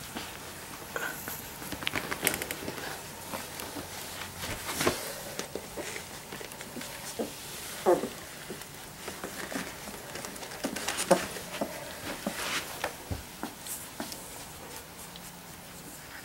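Three-week-old Labrador Retriever puppies shuffling over a shaggy blanket: scattered soft rustles and clicks, with a couple of brief puppy squeaks at about 8 and 11 seconds in.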